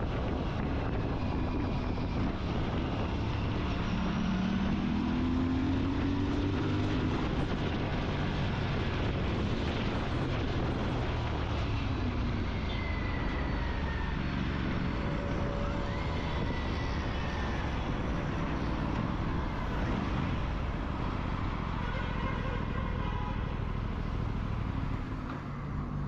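Aprilia RS 457 parallel-twin motorcycle engine running under way, with wind and road noise. The engine note rises a few seconds in as the bike accelerates.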